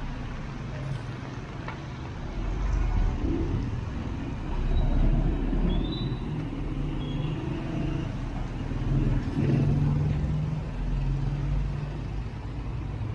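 Road traffic: vehicle engines running and passing in swells, with a few brief high squeaks about halfway through.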